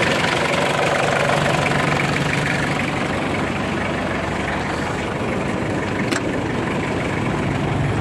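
Toyota 2C diesel engine idling steadily, with a single sharp click about six seconds in.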